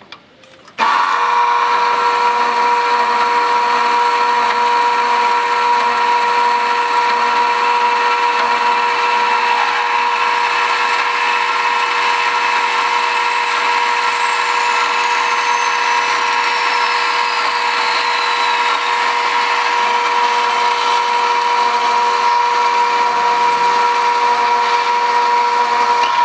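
Horizontal metal-cutting bandsaw starting about a second in and running steadily as its blade cuts through rectangular steel tube, a steady whine over the cutting noise. The sound is sped up fourfold.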